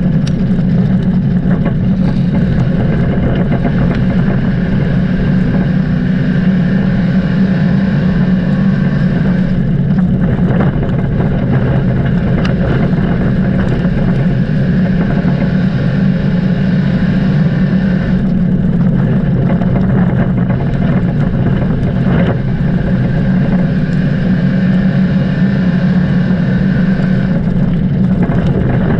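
Dirt-track race car engine running hard and without a break, its tone shifting in a repeating pattern about every nine seconds.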